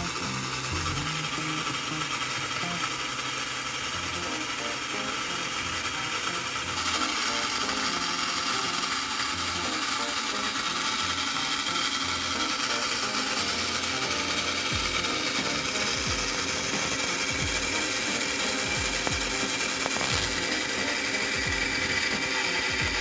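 1951 American Flyer #353 Circus locomotive's electric motor and gears running on the bench with the drive wheels lifted clear, a steady mechanical whirring that grows a little louder about seven seconds in.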